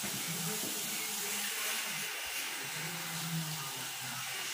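A steady airy hiss of room noise, with faint low sounds coming and going underneath.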